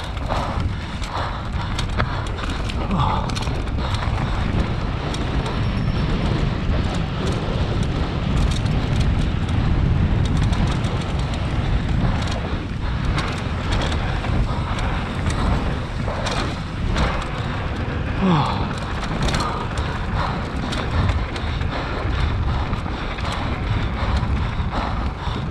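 Enduro motorcycle ridden over rough ground, recorded on board: engine noise mixed with heavy wind noise on the microphone, broken by frequent knocks and clatter from the bike.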